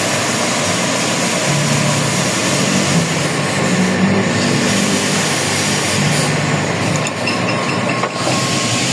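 Steady, loud mechanical running noise with a low hum underneath, from machinery running in a repair shop.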